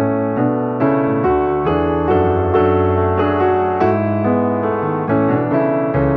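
Background piano music: a steady run of notes, one after another, with no other sound over it.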